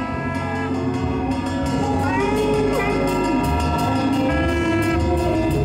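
Music: held chords with a lead melody that glides and wavers over a stepping bass line.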